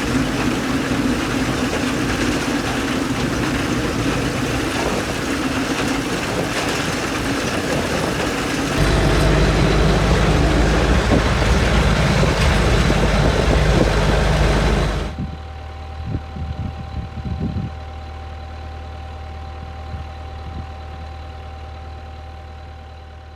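John Deere 5820 tractor driving a Krone round baler, a loud steady clatter of engine and baler machinery that grows louder and deeper partway through. About two-thirds of the way in the machinery noise cuts off abruptly, leaving the tractor's diesel engine running steadily and more quietly, fading out near the end.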